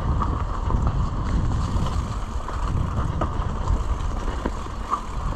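Mountain bike riding along a dirt trail: wind buffeting the microphone over rumbling tyre and ride noise, with scattered rattling clicks from the bike.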